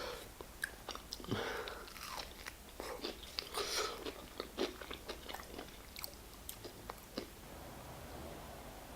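A person chewing and biting food close to the microphone: scattered wet mouth clicks and small crunches, which stop about seven seconds in.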